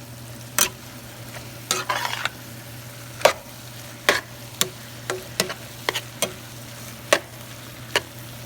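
Chopped chicken breast and gizzards sizzling steadily in a pan while a utensil stirs them, scraping and knocking against the pan in about a dozen irregular clicks.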